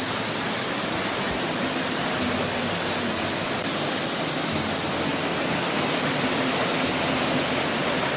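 Waterfall on a mountain stream, water falling and rushing in a steady, unbroken hiss.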